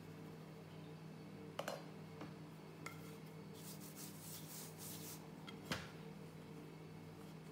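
Hands rubbing flour over a block of folded puff pastry dough for a couple of seconds, a soft scratchy rustle, then a single knock as a wooden rolling pin is set down on the dough. A few light clicks come earlier, over a steady low hum.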